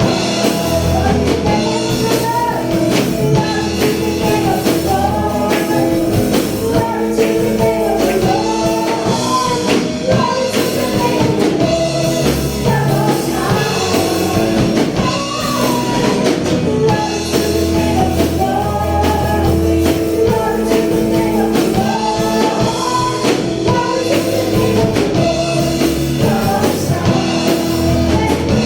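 Upbeat gospel praise song with a singing voice over drums, bass, and tambourine.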